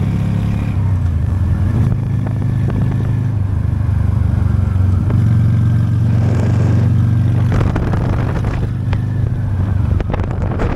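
Honda Steed V-twin motorcycle engine running at a steady cruise, its low engine note holding an even pitch.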